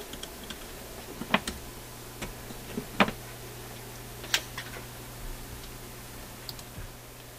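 A handful of separate sharp clicks and light knocks from gear being handled on a workbench, over a steady low electrical hum.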